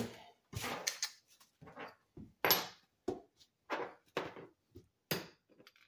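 Irregular metal clicks and knocks as a telescoping magnetic pickup tool is handled and brought down onto a steel bolt to pick it up with its magnet tip. About a dozen short taps, the loudest about two and a half seconds in.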